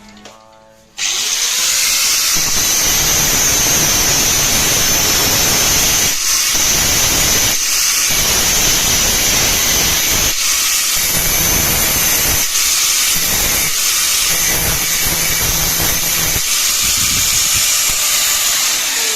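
Electric grinder grinding down the metal end cap of a bicycle quick-release hub, starting abruptly about a second in and running loud and hissy, with several brief dips in level.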